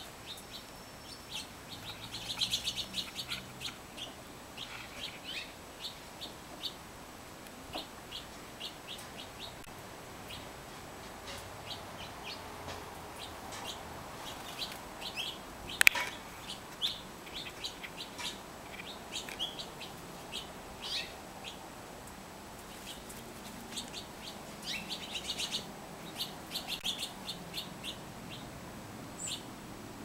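Small birds chirping: many short, high chirps, busiest in clusters near the start and near the end, with one sharp, louder sound about halfway through.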